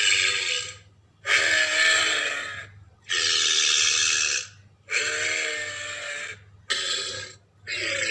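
Ankylosaurus creature vocalization sound effect: a string of about six guttural calls, each a second or so long with short breaks between them. Each call pairs a low pitched tone with a harsh, rasping hiss above it.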